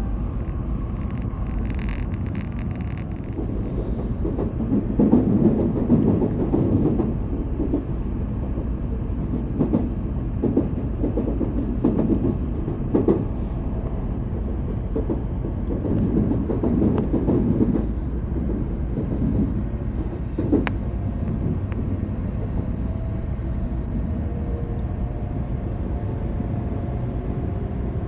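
Shinkansen cabin noise while running: a steady low rumble of the train on the rails. Clusters of clattering knocks come from the wheels and track a few seconds in, again around the middle and once more later.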